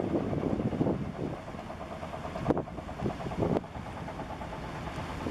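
An engine running steadily with a regular beat, under several gusts of wind buffeting the microphone.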